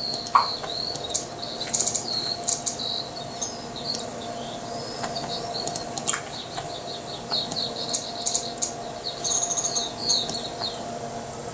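Small birds chirping: repeated short, high chirps over a steady low hum.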